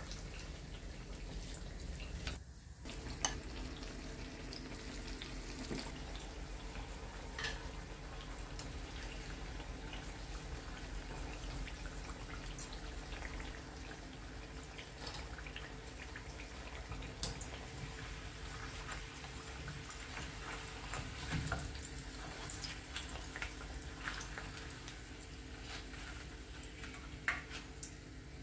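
Battered potato slices (aloo pakoras) deep-frying in a wok of hot oil: a steady sizzle with scattered pops and crackles.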